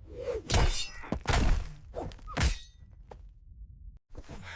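Cartoon fight sound effects: a quick run of whacks and thuds, the loudest about half a second, one and a half and two and a half seconds in, with smaller hits between.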